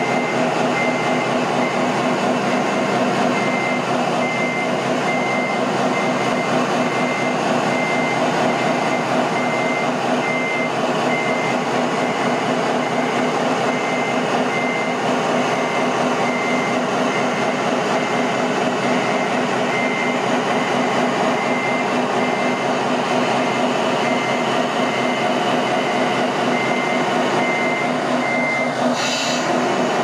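RC model semi-truck's sound module playing a running diesel engine sound with a reversing beeper, a regular high beep repeating steadily while the truck backs its flatbed trailer. The beeping stops shortly before the end, followed by a brief click.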